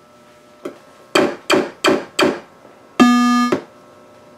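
Williams Earthshaker pinball machine booting at power-on: four sharp clacks about a third of a second apart, then a single electronic ding about half a second long. A faint steady hum runs underneath, which sounds like a ground loop through the speakers.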